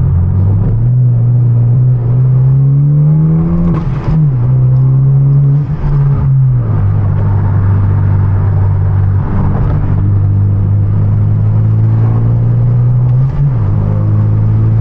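Hyundai Genesis Coupe 2.0T's turbocharged four-cylinder engine heard from the cabin. Revs climb for a few seconds, drop at a gear change about four seconds in and again a couple of seconds later, then hold steady while cruising, and rise again near the end.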